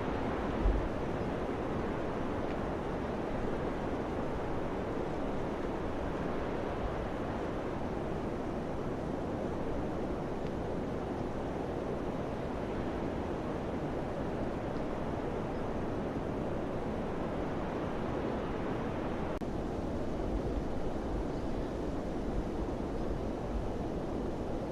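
Steady wind, an even rushing noise, with low gusts buffeting the microphone just after the start and again near the end.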